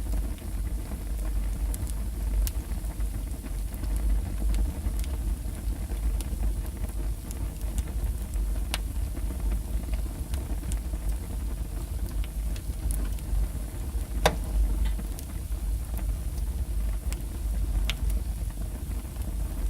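Wood logs burning in a fireplace: a steady low rumble of flames with scattered sharp crackles and pops, the loudest about fourteen seconds in.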